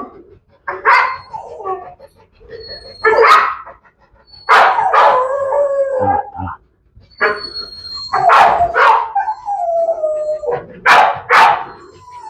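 Pit bull barking in loud clusters every second or two, with drawn-out, wavering whining and howl-like cries between the barks.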